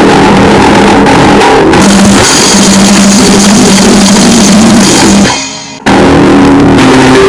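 Grindnoise/noisecore music: a dense, very loud wall of distorted noise with drums and guitar. It drops out briefly about five and a half seconds in, then crashes straight back in as a new section or track.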